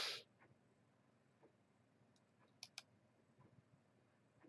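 A few faint computer mouse clicks over near silence, two in quick succession a little past the middle, as the Facebook page is clicked through. A brief hiss right at the start.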